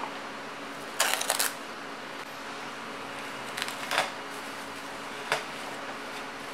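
Plastic cling film crinkling and rustling in short crackly bursts as it is wrapped around a cooked chicken breast, loudest about a second in and again around four seconds, followed by a single light tap, over a steady background hum.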